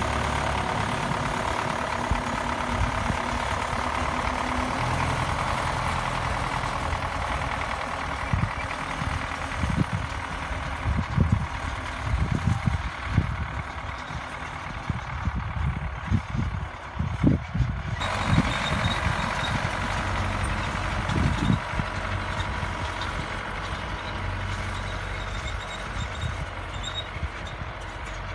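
MTZ-80 tractor's four-cylinder D-240 diesel with a TKR-7 turbocharger running steadily, with irregular low thumps in the middle. The sound changes abruptly about two-thirds of the way through, after which a faint steady high whine sits above the engine.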